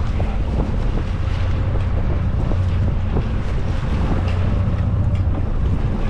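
Wind buffeting the microphone on a fishing boat at sea, over a steady low rumble, with water sloshing against the hull.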